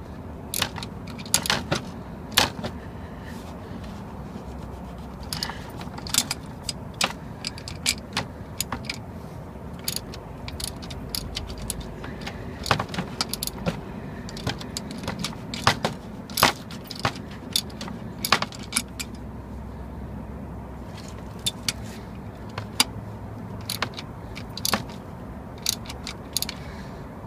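Scattered sharp metallic clicks and clinks of a hand wrench working the drain plug on the oil filter housing loose, over a steady low hum.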